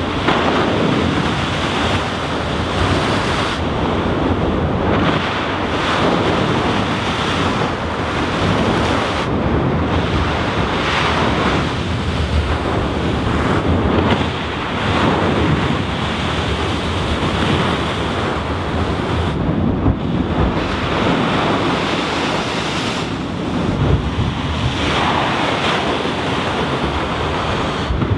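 Heavy swell at high tide breaking against a stone seawall, a continuous wash of surf rising and falling in repeated surges, with wind buffeting the microphone.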